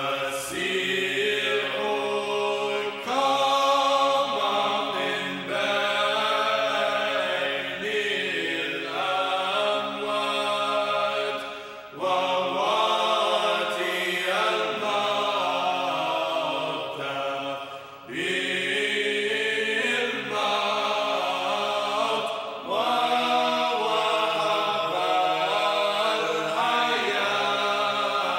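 Sung liturgical chant, voices holding long pitched notes in phrases several seconds long, with short breaks between phrases.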